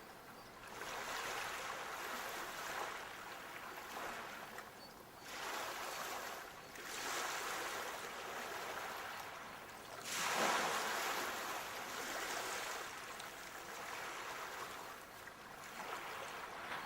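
Sea waves breaking and washing up the shore in repeated surges, each swelling and then fading away; the loudest comes about ten seconds in.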